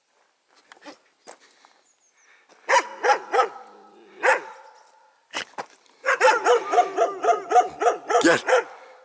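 Dogs barking: a few scattered barks, then a quick run of repeated barks from about six seconds in until near the end.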